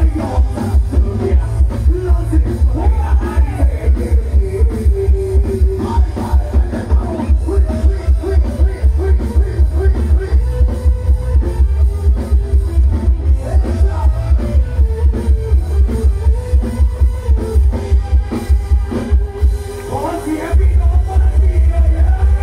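Live band on a rot hae sound-truck stage playing loud amplified dance music, with male vocals over a heavy, steady bass-drum beat. Near the end the bass drops out for about a second, then comes back in.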